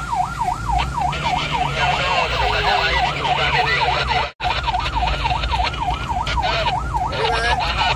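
Ambulance siren in a fast yelp, sweeping up and down about three times a second over engine and road rumble, heard from inside the ambulance's cab. The sound drops out for an instant a little past halfway.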